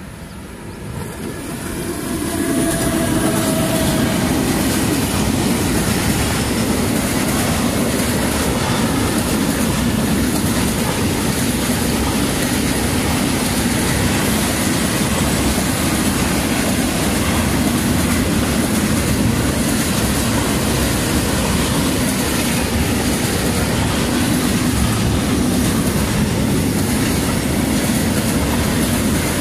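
Freight train hauled by an ET22 electric locomotive, made up of gas tank wagons, passing close by. It grows quickly louder over the first couple of seconds as it arrives, then holds a steady noise of wagon wheels running over the rails.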